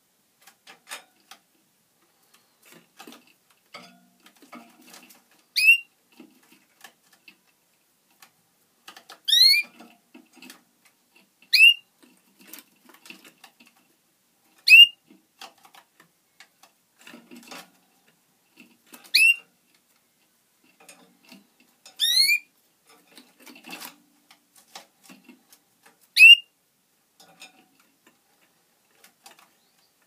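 Greenfinch x red factor canary hybrid giving a short, rising whistled call seven times, every few seconds, with faint ticking and scratching between the calls.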